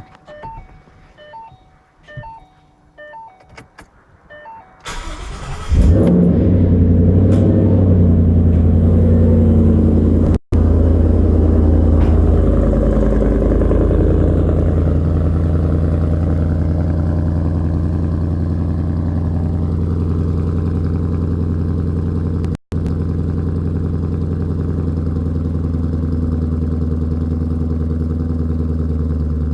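A 2014 Mustang GT's 5.0 V8, fitted with Roush axle-back mufflers, is cold-started. After a few seconds of steady beeping, the starter cranks and the engine catches about six seconds in. It settles into a loud, high cold-start idle that slowly eases down, and the sound cuts out briefly twice.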